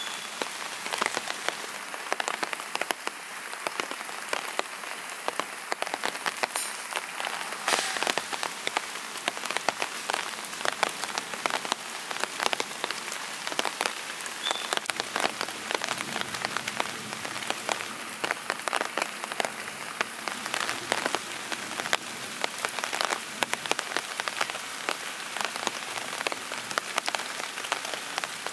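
Steady rain, with many separate drops striking a surface.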